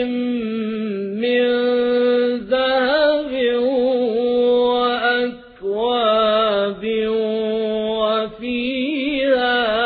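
Man's voice reciting the Quran in the melodic, drawn-out chanting style, holding long ornamented notes with short breaks for breath about halfway through and near the end.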